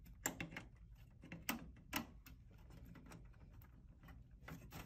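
Light clicks and knocks of a DVR's capture card and its cables being handled and worked into the expansion slot inside a metal computer case. A few sharper taps come in the first two seconds, with softer ticks after.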